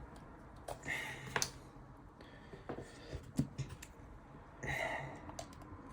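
Light clicks, taps and short scrapes of a plastic pry tool working at the glued edge of an iPhone 11's screen, trying to get under the display; the tool won't go in because the seal is tight.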